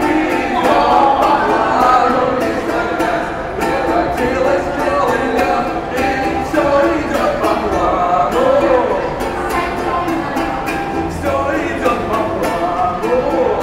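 A man singing to a strummed ukulele, the strums keeping a steady rhythm.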